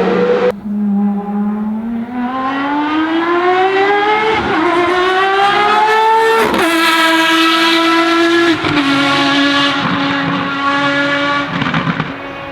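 Ferrari FXX Evo's V12 engine accelerating hard on track, its pitch climbing through the revs, with sharp upshifts about four and a half and six and a half seconds in. It then holds a steady note that steps down once more near nine seconds.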